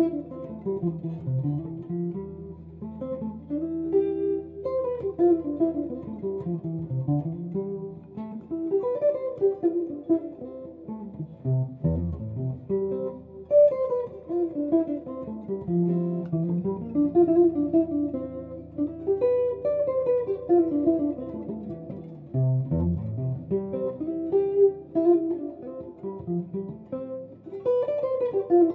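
Tele-style electric guitar played solo, in flowing phrases of single notes that run down and back up about every four seconds, with low notes held underneath.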